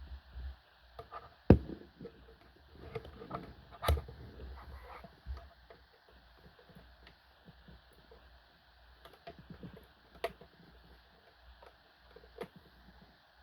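Scattered light clicks and knocks of plastic being handled as a flashlight taser's charging plug is fitted into a power strip socket. The two sharpest knocks come about one and a half and four seconds in.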